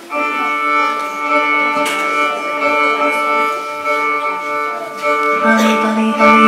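Recorded instrumental music played back over a portable stereo system, starting suddenly and going on steadily with held melody notes and chords.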